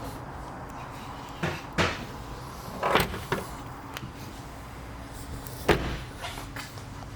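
Land Rover Discovery's doors and fittings being opened and shut: a handful of sharp clicks and thumps, the loudest near the end, over a steady low hum.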